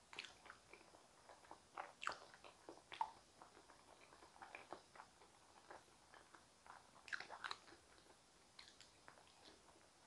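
Faint close-up eating sounds of a person biting into and chewing soft steamed potatoes: scattered small mouth clicks and smacks, busiest about two seconds in and again around seven seconds.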